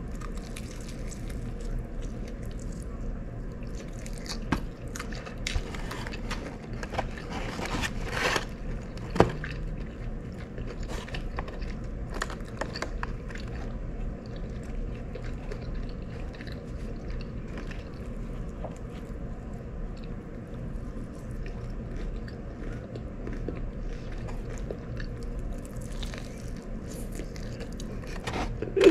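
Close-up biting and chewing of crispy fried chicken: irregular crunches and mouth sounds, louder around eight and nine seconds in, over a steady low hum.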